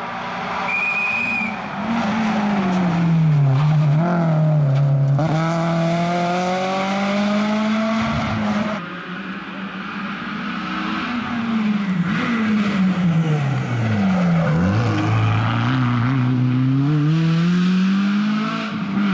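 Rally cars on a tarmac special stage, one after another: each engine is revved hard through the gears, its pitch dropping on downshifts and climbing again under acceleration as the car passes. There is a brief dip about halfway through before the next car's engine builds up and holds high revs.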